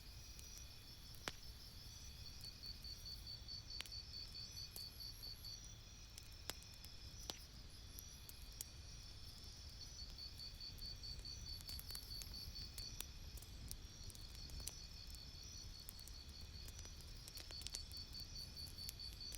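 Campfire crackling with scattered sharp pops, over a steady low rumble. Behind it, insects chirp in high, pulsed trills that come in runs of a few seconds.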